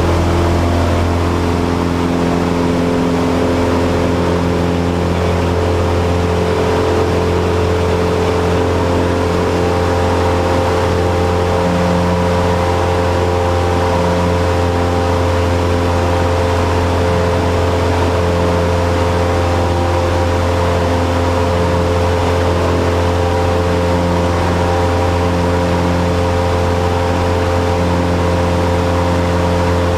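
Cessna 172's single piston engine and propeller droning steadily and loudly, heard from inside the cockpit.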